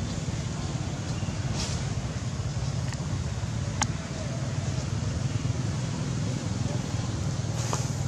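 Steady low rumbling background noise, with one sharp click just under four seconds in.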